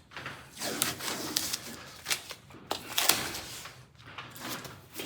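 Intermittent clicks, knocks and scrapes of window glass and door hardware being handled inside a 1956 Ford F100 door as the old cracked window is worked down.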